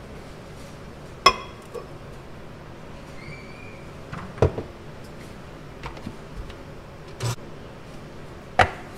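Kitchenware knocking and clinking: four separate sharp knocks spread across a few seconds, the first with a short bright ring.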